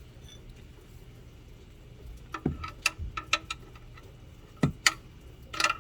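A run of sharp clicks and light taps, about eight, starting about two seconds in: small parts being handled while the old gasket is swapped for a new one on the oil drain plug.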